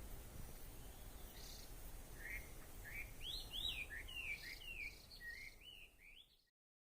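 Japanese bush warbler (uguisu) singing: a quick run of about a dozen short, sweeping notes, starting a couple of seconds in, over a low background rumble. The sound cuts off abruptly near the end.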